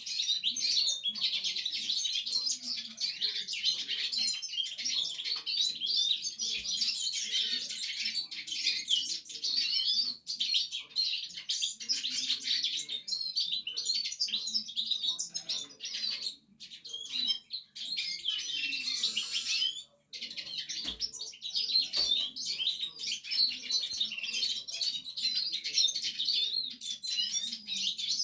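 Domestic canary singing its first, practice song: a continuous rapid twittering warble, broken by two short pauses past the middle.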